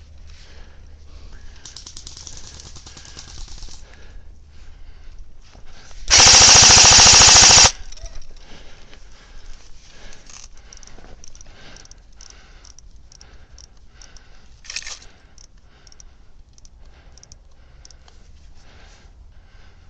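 Airsoft AK-47 style electric rifle firing one full-auto burst of rapid shots lasting about a second and a half, starting about six seconds in. Faint rustling and a short sharp snap come before and after it.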